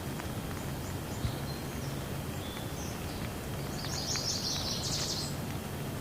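Steady hiss of falling rain, with a bird calling in short high chirps and then a louder rapid run of chirps about four seconds in.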